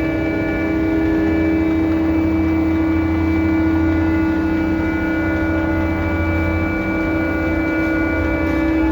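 Crane machinery running during container loading, a loud, steady drone with a strong humming tone; a low rumble under it drops away about seven seconds in.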